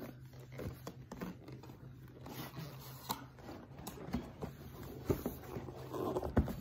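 Cardboard box and paper packaging being handled and unpacked: scattered rustles, scrapes and light taps.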